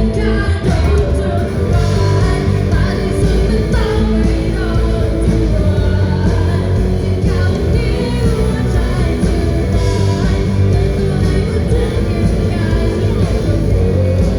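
A live band playing a rock song with a singer's vocal line over a loud, steady, bass-heavy accompaniment.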